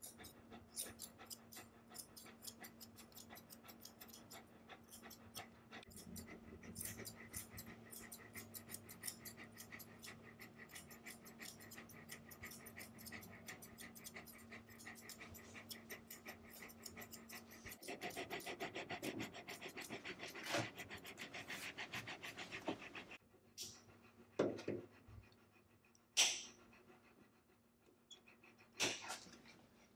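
Shiloh Shepherd panting fast and steadily, a little louder about two-thirds of the way in. Near the end the panting stops and a few sharp snips of nail clippers cutting its nails are heard.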